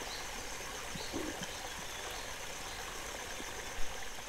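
Steady, faint outdoor background hiss, with a short knock near the end.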